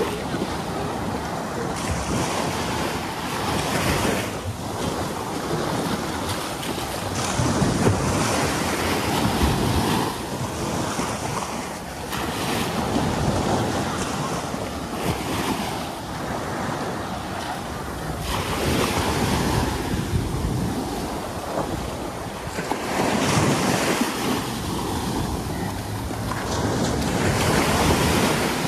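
Surf breaking on a beach, the wash of the waves swelling and easing every few seconds, with wind buffeting the microphone.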